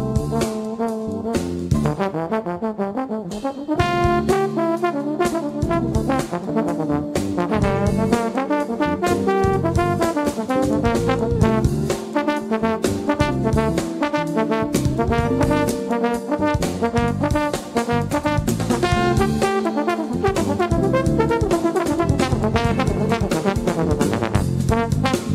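A trombone plays a jazz line of quick, changing notes over a drum kit whose cymbal and drum strokes keep time.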